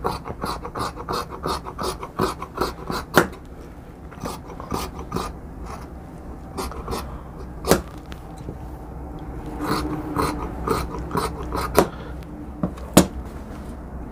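Tailoring scissors snipping through two layers of white shirt fabric, cutting out a sleeve: runs of quick short snips with pauses between them, and a few sharper single clicks of the blades closing.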